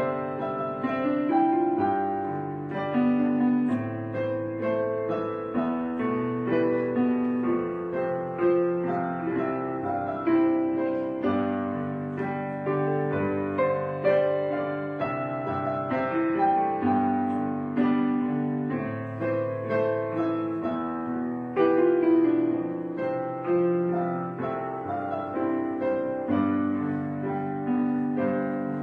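Background piano music: a calm piece of sustained chords and a melody, with notes changing every half second or so.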